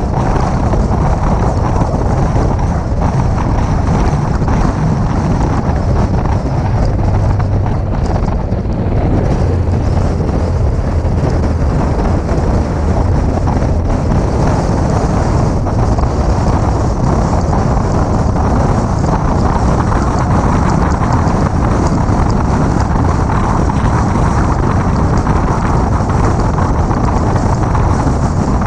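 Steady wind rushing and buffeting on the microphone of a 2006 Mini Cooper S cruising at road speed. The car's engine and tyre noise run underneath without any marked rise or fall.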